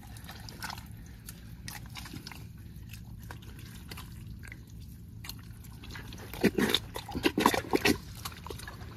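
Wet squelching and sloshing of mud and water as hands plunge into a muddy burrow to flush out a snake eel. Low wet noise at first, then a cluster of loud, irregular squelches about two-thirds of the way through.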